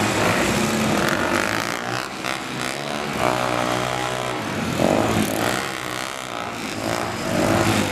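Several motorcycle engines running and revving at once, their pitch rising and falling as the bikes push and ram each other.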